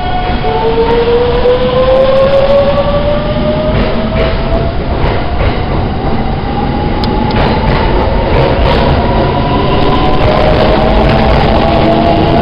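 JR 681 series electric express train pulling away, its motor whine rising slowly in pitch as it gathers speed, over wheel rumble with scattered clicks of the wheels over rail joints.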